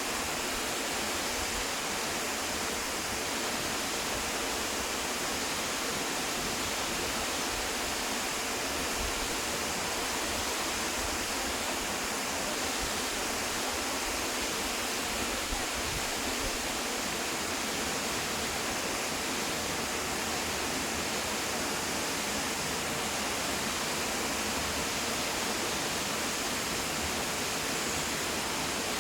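Waterfall: a steady rush of falling water, an even noise with no breaks.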